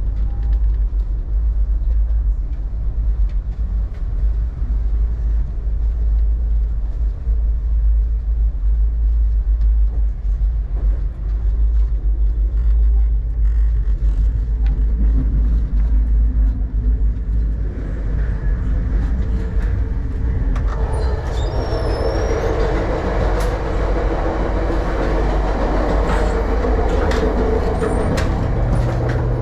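Sleeper passenger train running on the rails, a steady low rumble that grows louder and busier about two-thirds of the way in.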